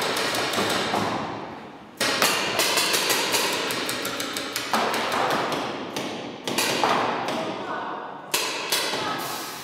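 Paintball markers firing in rapid bursts of shots, several a second, one burst after another, each burst echoing in a large indoor hall.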